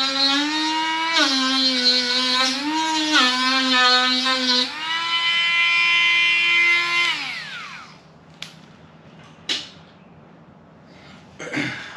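Cordless Dremel rotary tool cutting the edge of a Jeep JL's plastic fender, its high whine dipping in pitch each time it bites into the plastic. About five seconds in it runs free at a steady, higher pitch, then is switched off just after seven seconds and winds down. Two light clicks follow.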